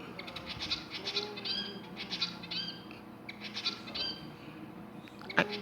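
Pet bird singing: repeated runs of high chirps and short whistled notes, in several bursts. A sharp click sounds near the end.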